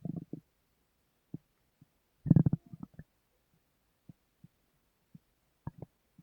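Human stomach gurgling: short, irregular bubbling rumbles. The loudest burst comes about two seconds in, followed by scattered faint pops.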